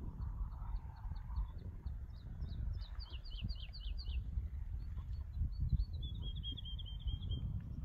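Wind buffeting the microphone as a steady low rumble, with small songbirds singing over it: a run of short high notes, then a louder series of quick downward-slurred notes about three seconds in, and a fast high trill near the end.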